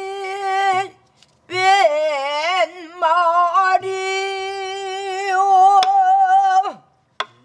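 A woman singing pansori, holding long notes with wavering, bending ornaments, with a brief break about a second in. She is accompanied by a few low buk barrel-drum strokes and sharp clicks of the drumstick on the drum's wooden body.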